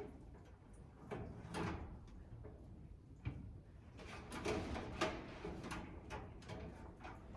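Irregular clunks, scrapes and rattles of a bathroom exhaust fan and its housing being handled and fitted onto a mounting bracket, with a sharper knock about five seconds in, over a low wind rumble on the microphone.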